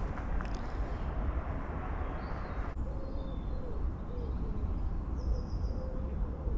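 Outdoor ambience with a steady low rumble and birds calling: small high chirps here and there, and a low, wavering call repeating from about three seconds in.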